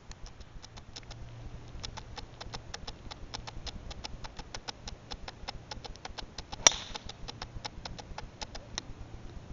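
A golf club strikes a teed ball with one sharp crack about two-thirds of the way through. Under it runs a steady series of fast, high ticks, about four or five a second.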